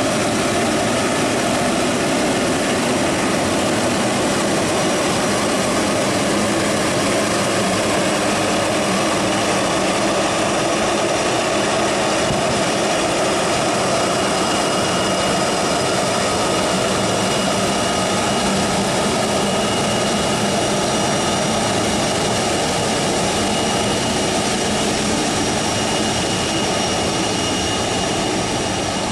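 Jet engines of a departing Boeing airliner at takeoff thrust: a steady, loud noise with thin high whining tones over it, easing slightly near the end.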